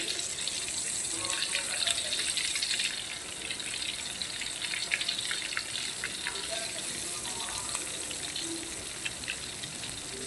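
Marinated chicken pieces deep-frying in hot oil in an aluminium wok: a steady sizzle full of small crackling pops, as fresh pieces have just gone into the oil. It is louder for the first three seconds or so, then settles into a slightly quieter sizzle.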